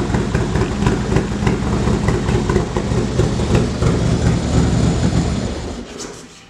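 Harley-Davidson Milwaukee-Eight 117 V-twin with a Feuling 487 bolt-in cam, not yet tuned, idling with a throaty, pulsing beat. About five and a half seconds in it is switched off and runs down to a stop.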